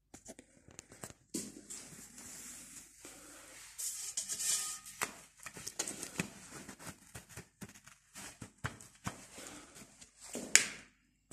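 Glass-fibre wall-lining fleece rustling and crinkling as a cut sheet is handled and folded by hand, with small knocks and clicks, and one louder sharp swish near the end.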